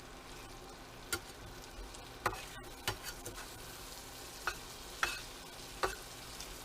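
Diced vegetables sizzling faintly in a pot while being stir-fried, with a stirring utensil knocking against the pot about six times, roughly once a second.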